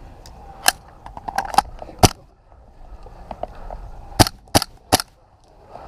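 Airsoft guns firing single sharp shots at irregular intervals, with a quick run of three shots about four seconds in.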